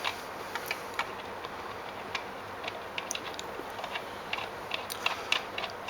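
Scattered light clicks and taps of the saw's blade flange and bolt being handled and fitted onto the spindle by hand.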